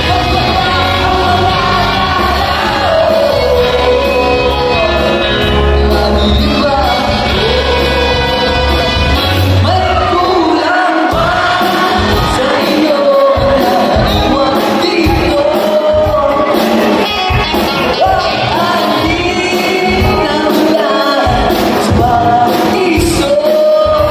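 Live pop-rock band playing with lead vocals, loud and steady, heard from within the audience in a large hall.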